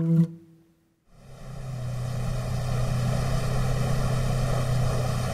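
Boat engine running steadily under way, fading in about a second in after a brief silence: a constant hum with a stack of even overtones.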